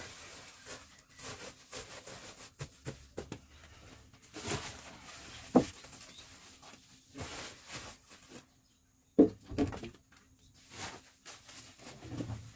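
Plastic sacks rustling and bumping as they are handled and lifted onto a motorcycle, with a few sharper knocks.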